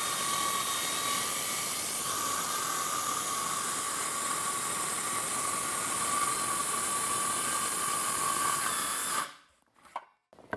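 Circular saw running steadily as it rips through a sheet of plywood, with a faint steady whine over the cutting noise. The sound stops abruptly about nine seconds in, and a few light knocks follow near the end.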